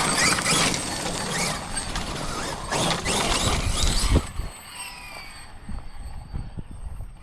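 Losi 5ive TE 3.0 electric RC truck running hard, its drivetrain whine rising and falling with the throttle over rough tyre and ground noise. About four seconds in it drops away suddenly to a much quieter whine with a few knocks.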